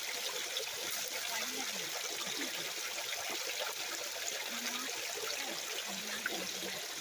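Small creek waterfall trickling steadily over rocks.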